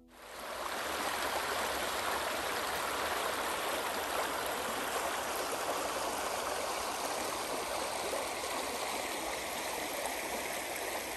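Shallow stream flowing steadily over a stony riffle, a constant rush of water that fades in at the start.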